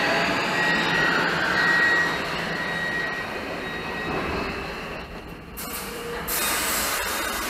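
Munich U-Bahn train pulling into the station and braking: wheel and rail noise with a thin high whine, fading as the train slows to a halt. A sudden hiss starts about six seconds in.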